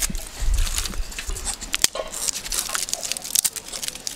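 Dry twigs and lumps of charcoal being handled and laid in a perforated metal charcoal brazier: scattered sharp clicks and knocks with crackly rustling of the sticks.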